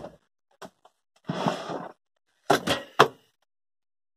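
A wooden drawer of a chest of drawers being pulled open: a short scrape of wood sliding on its runners, then a few sharp knocks as the drawer and the tools inside it jolt.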